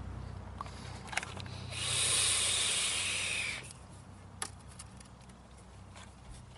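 Vape vapor blown by mouth through a hose into a car's intake manifold for a vacuum-leak smoke test: a steady hiss of about two seconds, starting a couple of seconds in. A steady low hum and a few light clicks sit underneath.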